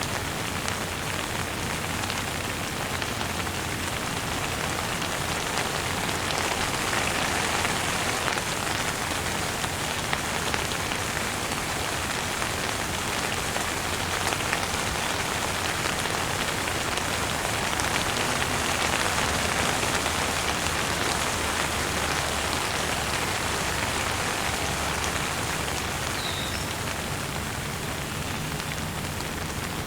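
Light rain falling steadily on a surface, a continuous even patter of many small drops.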